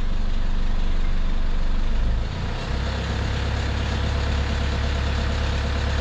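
Sailboat's inboard diesel engine running steadily, its note shifting about two seconds in as a little throttle is given. It runs smooth again after the diesel bug was cleared from its fuel system.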